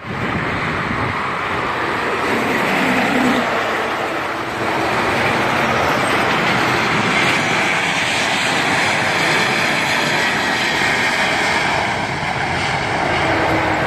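Jet airliner's engines running at high power as it moves along the runway, a steady loud rush with a brief dip about four seconds in.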